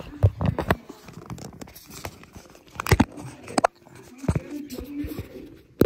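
Handling noise of a smartphone being moved and gripped close to its microphone: rubbing and a few sharp knocks, the loudest about three seconds in.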